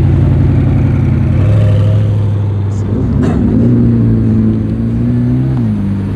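Supercars, a Koenigsegg and then a McLaren, pulling slowly out past the camera, their twin-turbo V8 exhausts running at low revs with a steady deep tone that steps up in pitch about a second and a half in and drops near the end. A single sharp crack a little after three seconds in.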